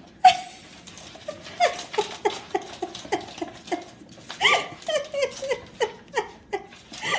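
A cat making quick, repeated short chirping mews, about three a second, each dropping a little in pitch, as it chases a laser-pointer dot. A sharp knock comes just before the calls begin.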